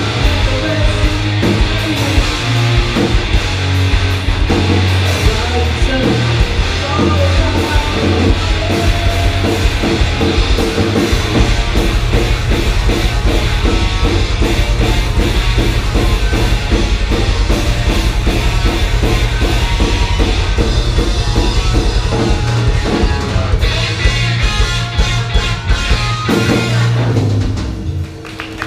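Live rock band playing loud: two electric guitars, bass guitar and a drum kit, with a fast steady pulse through the middle. Near the end the playing drops away, leaving a held chord.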